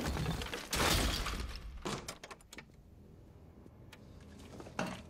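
Film sound effect of rubble settling: a rush of crumbling stone debris about a second in, then small scattered pieces clattering down, and a single short knock near the end.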